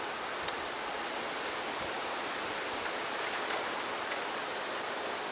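Steady hiss-like buzz of honeybees from an open hive, with a light click about half a second in as a wooden frame is worked loose.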